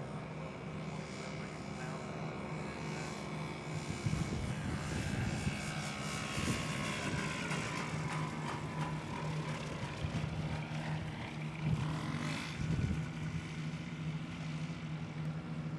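SkyPup ultralight's single-cylinder two-stroke engine and propeller droning steadily as the plane flies low past and comes in to land, growing louder from about four seconds in.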